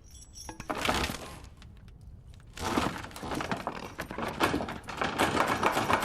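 A short crash about a second in, then a loud, long clattering crash of many sharp impacts from about two and a half seconds on.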